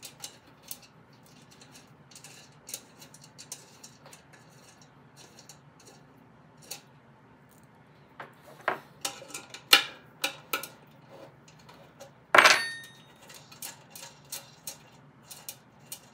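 Steel parts and hand tools on a Snapper rider's drivetrain being handled, giving scattered small metallic clinks and taps. A quicker run of clicks comes a little past the middle, and one louder ringing metal clank comes about twelve seconds in.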